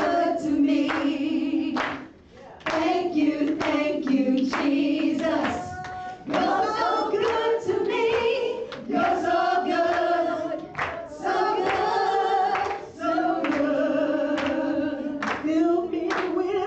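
Several women's voices singing a slow worship song together into microphones, holding long notes.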